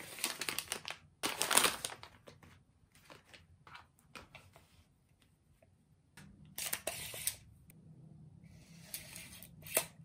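Packaging crinkling and rustling as it is handled, in a few separate bursts, loudest in the first two seconds, with a sharp click near the end.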